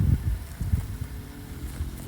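Vehicle engine running steadily, with wind buffeting the microphone in low gusts that are heaviest at the start and ease off after about half a second.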